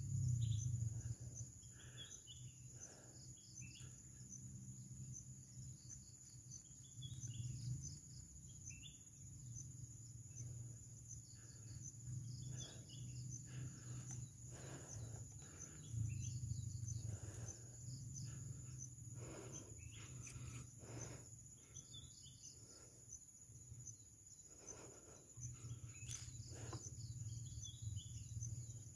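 Faint outdoor ambience: insects keep up a steady high trill, with scattered short bird chirps now and then over a low hum.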